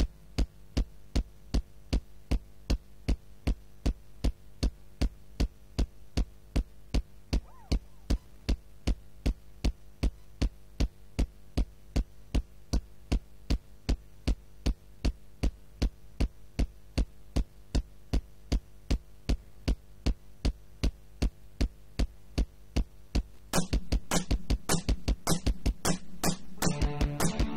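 Yamaha RX7 drum machine playing a steady beat on its own, about two hits a second, over a faint steady hum. Electric guitar comes back in near the end.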